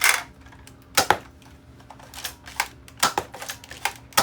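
Nerf blaster firing foam darts: a string of sharp plastic clicks and pops at uneven spacing, about ten in all, the loudest right at the start.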